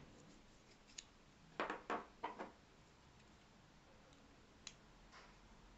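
Small 3D-printed plastic clock parts and a metal pin handled and fitted together by hand: a faint click, then three short scrapes close together about two seconds in, and another light click later, against near silence.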